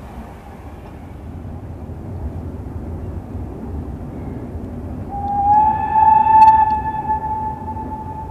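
Steam locomotive whistle sounding one long, steady blast from about five seconds in, over the low rumble of the moving train.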